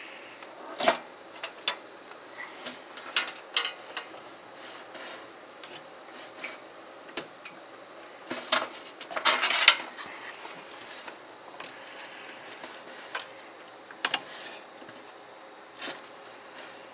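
Cables and plastic connectors being handled and pushed into place inside a computer case: scattered clicks, taps and rubbing, with a longer scraping rustle about nine seconds in.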